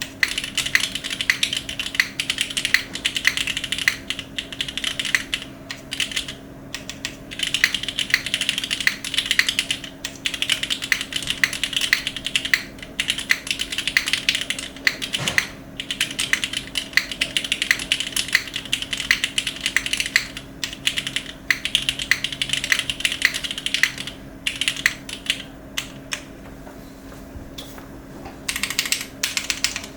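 Typing on a NEO80 CU plateless custom mechanical keyboard with vintage MX Black linear switches and GMK keycaps: a steady stream of keystrokes in long runs, broken by brief pauses and a gap of about two seconds near the end. A faint steady hum sits underneath.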